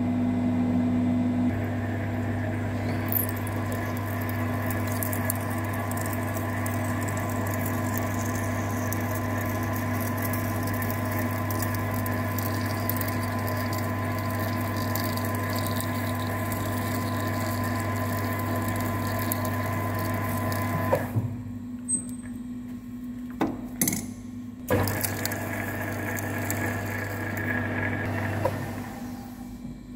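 Lathe running steadily, humming, while an M24 tap held in the tailstock cuts a thread into a spinning stainless steel bar. About 21 seconds in the lathe stops and a few sharp clicks and knocks follow; it runs again for a few seconds, then stops near the end.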